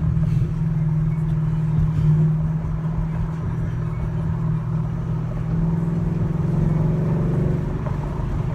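2015 Mustang GT's 5.0 Coyote V8 running under way, heard from inside the cabin as a steady low drone, the engine note rising a little about six to seven seconds in.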